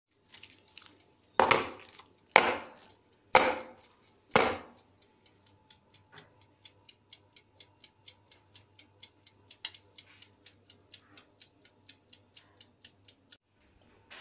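Four loud knocks about a second apart, each with a short ring, then a mechanical oven timer ticking steadily, about three to four ticks a second, over a faint hum; the ticking stops shortly before the end.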